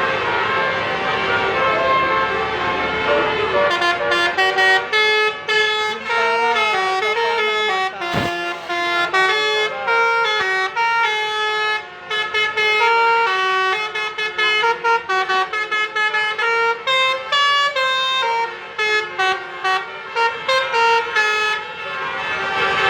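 Tour bus's basuri ('telolet') melody horn playing a quick tune of stepped notes, starting about four seconds in and running until just before the end.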